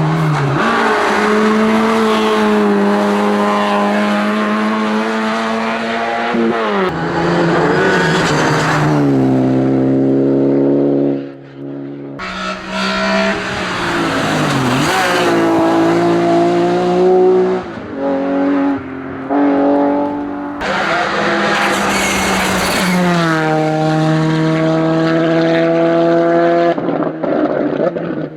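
Hillclimb racing car engines at full throttle, revs climbing and then stepping down sharply with each upshift, over and over. The sound drops away briefly about eleven seconds in before another car comes through with the same pattern of rising revs and gear changes.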